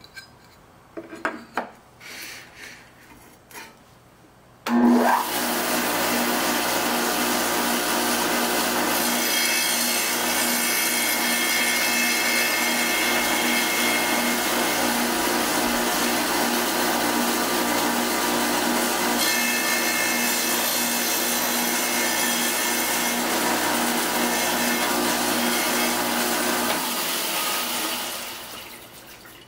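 A few light knocks of glass being handled, then a wet tile saw switches on about five seconds in. Its motor runs with a steady hum and hiss while the blade cuts through a sheet of mirror glass. The motor winds down near the end.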